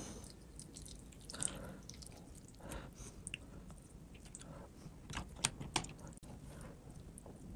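A person chewing a mouthful of cooked fish, with wet mouth smacks and sharp clicks about a second and a half in and twice just after five seconds.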